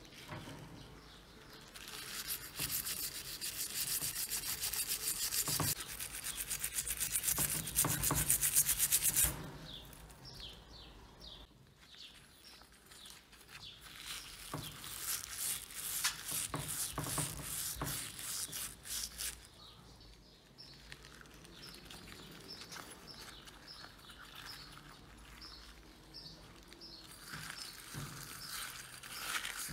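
A wire scrubber rubbing against the vinegar-wet bronze of a small mortar in fast back-and-forth scrubbing strokes, cleaning off the tarnish. The strokes are loudest for the first several seconds, then turn quieter and come in spells, and pick up again near the end.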